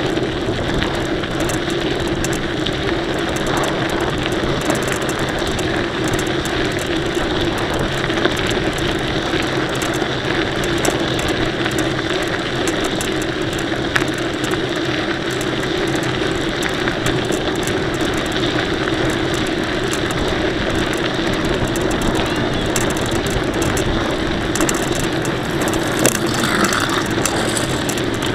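Mountain bike being ridden: steady rolling noise of the tyres and drivetrain, with a run of fine rattling clicks from the bike's mechanism and a few sharper knocks.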